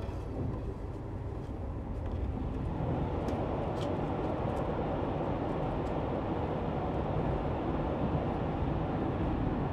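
Steady rumble and rush of a moving passenger train, heard from inside the carriage, with a few faint ticks a few seconds in.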